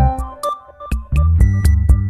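Electronic background music: synthesizer notes over a bass line and drum-machine beat, thinning out briefly about half a second in before the beat comes back.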